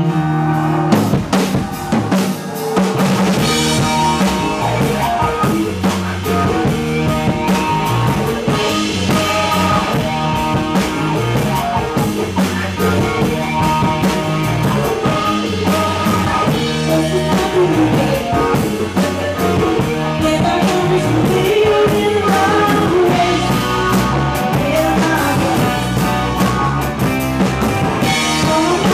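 Live rock band playing, with drum kit, electric guitar and keyboards.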